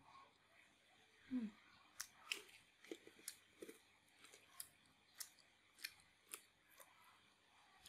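Close-up eating sounds: a mouthful of rice paper salad with quail egg being chewed, with a short low hum about a second in, then quiet sharp clicks roughly every half second.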